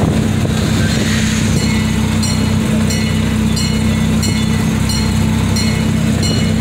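Miniature amusement-park train running steadily with a low engine hum. From about a second and a half in, a bell rings at an even pace of about one and a half strokes a second.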